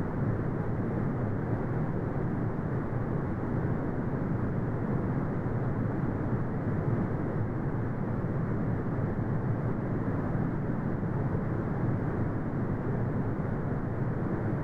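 Synthetic brown noise: a steady, deep rumbling hiss with no changes, its energy strongest in the low range and cut off sharply above the mid range.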